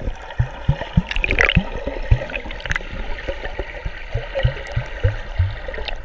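Pool water heard from below the surface: muffled sloshing and gurgling, with many short, low pops.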